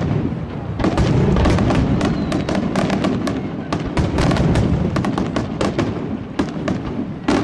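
Aerial fireworks display: a dense, rapid run of sharp bangs and crackles over a continuous low rumble of shell bursts.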